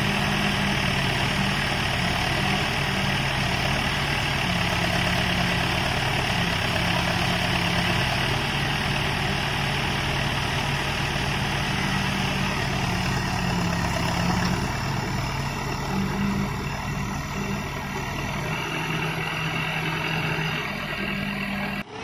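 Diesel engine of an Escorts backhoe loader running steadily at an even pitch while the machine digs with its backhoe.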